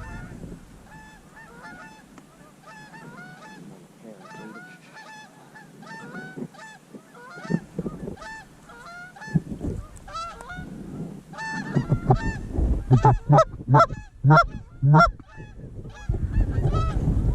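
Canada geese honking, many overlapping calls throughout, with a run of much louder, closer honks about twelve to fifteen seconds in.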